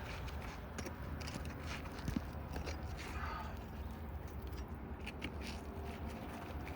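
Scattered scrapes and light clicks of asphalt roof shingles being worked loose by hand, over a steady low rumble.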